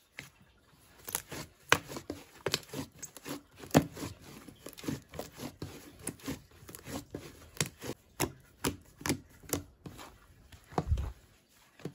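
Thick white slime squished and folded under hands, giving off irregular sharp pops and clicks as air pockets burst. There is a soft thump near the end.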